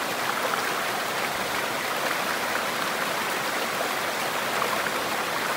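Stream and waterfall: a steady, even rush of water tumbling over rocks.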